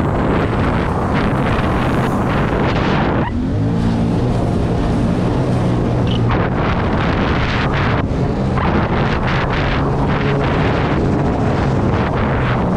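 Jet ski engine running steadily under way, with wind buffeting the microphone. Between about 3 and 6 seconds in the wind eases and the engine's steady hum comes through most clearly.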